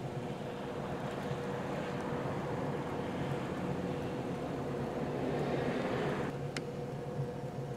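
A vehicle engine running with a steady low hum. Over it a rushing noise swells for several seconds and cuts off abruptly about six seconds in, followed by a single click.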